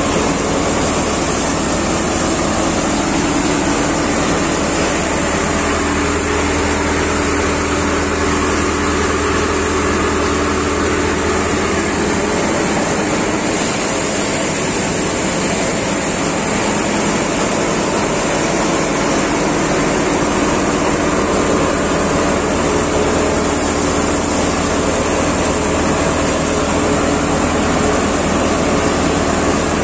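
Paddy thresher running steadily while threshing paddy, its drum, fan and drive giving a loud, even mechanical drone with a few steady tones. The deepest part of the hum dips for several seconds midway.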